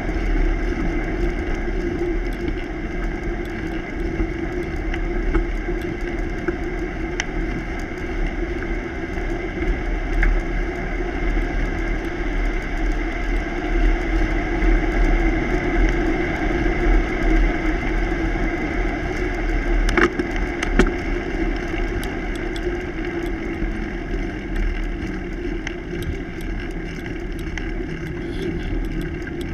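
Bicycle rolling along a paved road: steady rush of wind buffeting the camera's microphone over the hum of the tyres, with a couple of sharp clicks or rattles about two-thirds of the way through.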